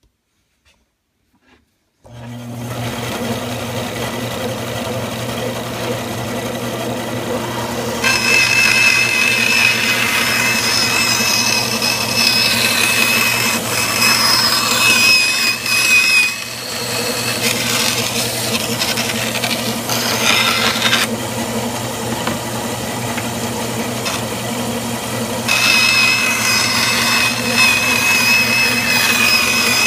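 Bandsaw motor switched on about two seconds in and running steadily, then the blade cutting scrap MDF: a louder stretch with a high wavering whine for much of the middle, and a second cut near the end.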